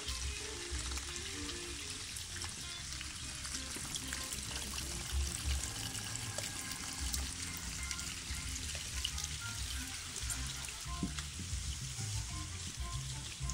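Steady rain hissing and pattering on paving and pooled water, with rainwater running along a stone gutter channel.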